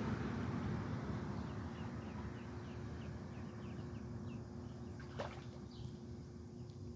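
Traffic noise fading away, under a run of short high peeps from ducklings, about three a second, then one falling call about five seconds in.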